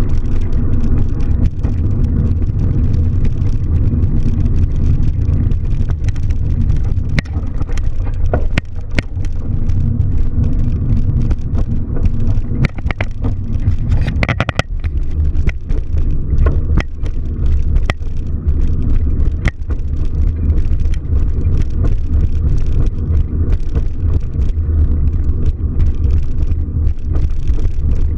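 Steady low rumble of a car on the move, with scattered clicks and knocks, a cluster of them about halfway through.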